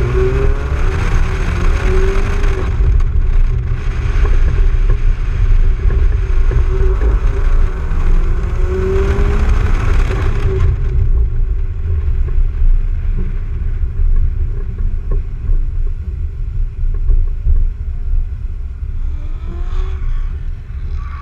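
In-car sound of a car driven hard through an autocross course: the engine revs up and down between gear changes under a loud hiss of wind and tyres. About halfway through the hiss drops away sharply and the engine settles to a lower, quieter note as the car slows, with a brief rev near the end.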